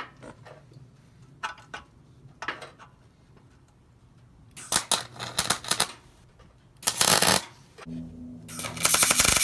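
Welder laying a few short tack welds: three bursts of crackling arc, the last two the loudest.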